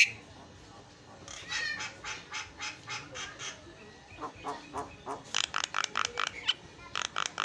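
Javan myna (jalak kebo) singing in runs of short, harsh, repeated notes, about four a second. After a brief pause the notes come faster and louder.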